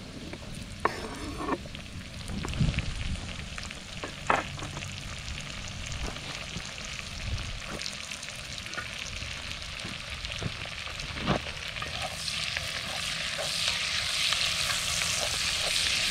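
Potatoes and red pepper frying in bacon grease in a cast iron Dutch oven, sizzling steadily. In the first few seconds there are a few sharp clicks as the pepper chunks are scraped off a wooden cutting board into the pot. About twelve seconds in, the sizzle grows louder as the food is stirred with a wooden spatula.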